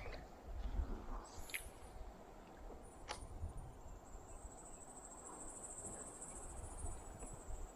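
Faint insect buzzing from the riverbank, high-pitched and coming in waves, over a low rumble of wind on the microphone. Two sharp clicks sound, about a second and a half and three seconds in.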